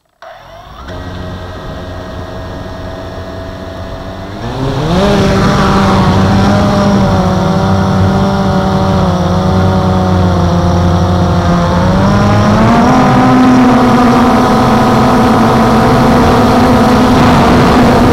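Blade 350 QX quadcopter's four brushless motors and propellers heard from the camera on board: they start at a low idle, then about four and a half seconds in the throttle comes up sharply for takeoff and the whine jumps in pitch and loudness. The pitch wavers while it hovers, then steps up again a few seconds before the end as it climbs.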